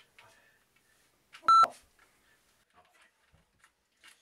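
A single short, loud electronic beep about one and a half seconds in, with faint rustles around it.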